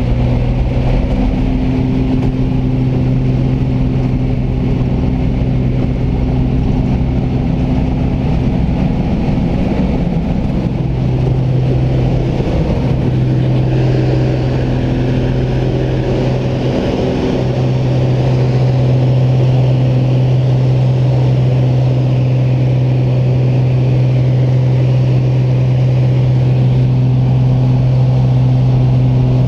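Piston engine of a single-engine high-wing light aircraft, heard from inside the cabin, running at takeoff power as the plane rolls down a grass strip and climbs out. It makes a loud, steady drone with airflow rumble and grows slightly louder about halfway through.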